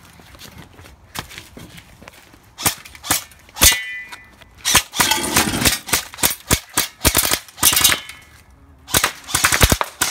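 G&G M4 airsoft electric rifle firing, first a few single shots, then rapid full-auto bursts about halfway through and again near the end.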